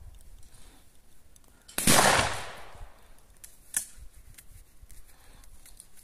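A single shotgun shot about two seconds in, its report trailing off over about a second. A short sharp click follows nearly two seconds later.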